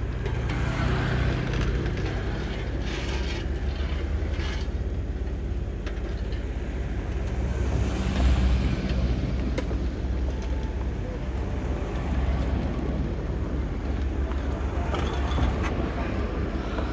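Heavy road-works machinery engine running steadily with a low rumble, swelling briefly about eight seconds in.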